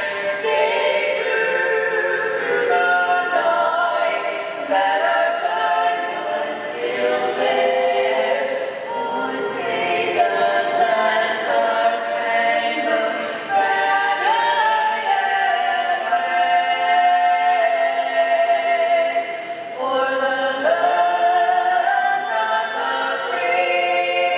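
A choir singing, several voices holding long notes together, with a short break between phrases near the end.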